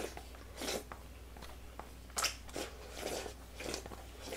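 Several short slurps and gulps of soup drunk straight from a bowl held to the mouth.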